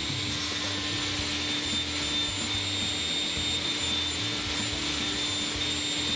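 Sliding table saw running steadily as a walnut slab tabletop is fed along past its blade, a constant machine hum and hiss.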